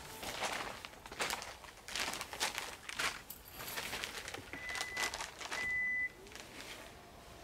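Rustling, crinkling and light knocks of camping gear being handled over a plastic tent floor sheet. Two short, steady high beeps come about halfway through.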